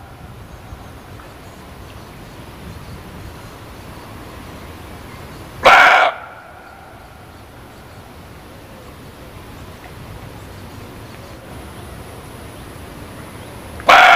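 Muntjac (barking deer) giving short, loud single barks spaced several seconds apart: one about six seconds in and another at the very end. A faint steady background noise runs between the barks.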